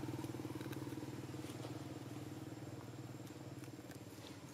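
An engine running steadily, its hum slowly fading away, with a few faint ticks over it.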